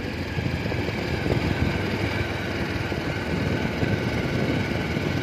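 Motorcycle being ridden along a road, its engine running steadily under a constant rush of wind noise.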